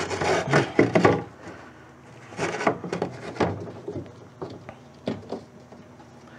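Irregular knocks, clunks and scrapes of a VW Beetle door's window glass and regulator being worked into place inside the steel door shell, busiest in the first second and again about two and a half to three and a half seconds in.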